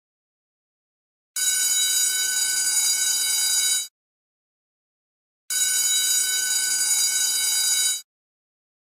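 School bell ringing in two bursts of about two and a half seconds each, starting and stopping abruptly with total silence between them.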